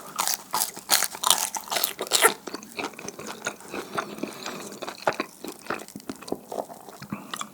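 Close-miked biting and chewing of pan-fried dumpling hotteok: loud crisp crunches for the first two seconds or so, then quieter, wet, sticky chewing.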